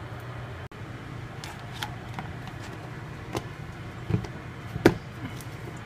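Light clicks and knocks of plastic kitchenware, ending in a sharp snap about five seconds in as a blue plastic lid is pressed down onto a plastic bowl of sauce-covered ribs. A low steady hum runs underneath.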